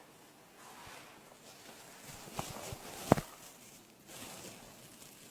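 Props being handled close to the microphone: soft rustling, with a few light taps and a sharper one about three seconds in.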